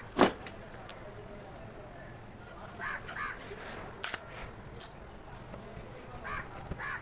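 Sand-cement block being tapped and crumbled: one sharp crack a quarter second in, then light crunching and a few clicks around four to five seconds. Crows caw in pairs in the background.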